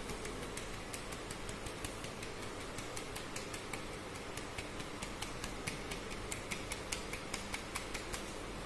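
A fine-mesh sieve being tapped and shaken to dust powder, giving a rapid run of light ticks, several a second.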